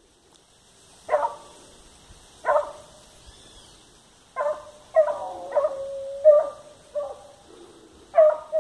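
Hunting dog barking in the brush: two single barks, then a quicker run of barks with one drawn-out bay in the middle.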